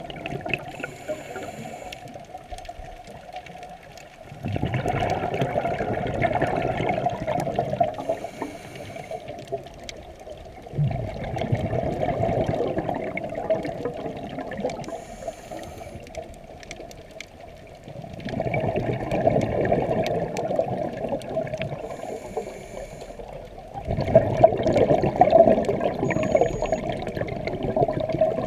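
Scuba diver breathing through a regulator underwater: a short hissing inhale, then a long stream of exhaled bubbles, repeating in a slow even rhythm of about four breaths.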